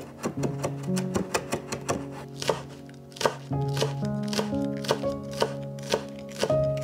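A Global chef's knife chopping on a wooden board, slicing chilli and then spring onion. The chops come quickly at first, about five a second, then settle to about three a second. Background music plays underneath.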